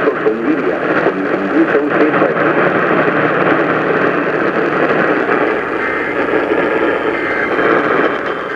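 Loud radio static from a broadcast receiver: a dense, even hiss with a steady low hum and faint garbled audio buried in it.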